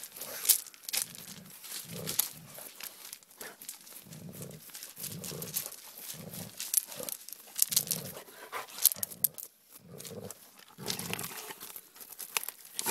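A Doberman going at a hedgehog rolled into a ball on pebbly gravel: short, low huffs from the dog come every second or so. Sharp clicks and crunches of the pebbles are mixed in among them.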